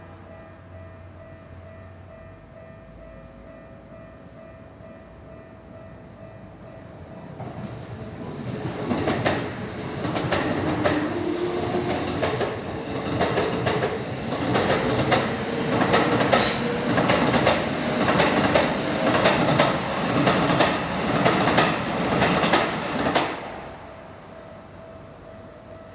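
A Keikyu commuter train, a 1500 series set coupled to a 1000 series set, passes over a level crossing. It builds up about seven seconds in, then its wheels clack over the rail joints and the crossing in a fast, even rhythm for about fifteen seconds, and it cuts off sharply near the end. A steady level-crossing warning tone sounds faintly before and after the train.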